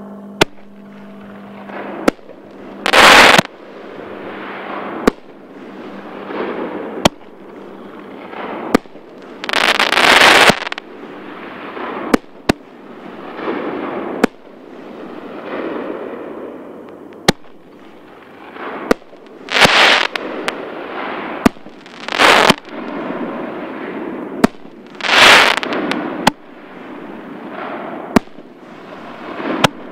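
6-inch consumer artillery shells being fired one after another: sharp bangs every second or two as shells launch and break. Several longer, louder bursts stand out among them, and a fading wash of sound fills the gaps between shots.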